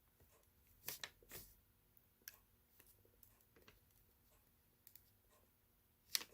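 Faint, scattered clicks and snips of insulation being stripped from the end of a thin wire, the clearest about a second in and again just before the end.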